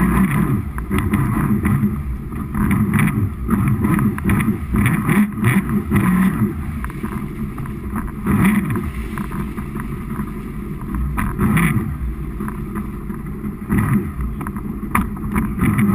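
Jet ski engine running over open water, its pitch wandering up and down with the throttle, with water churning and splashing and wind buffeting the microphone.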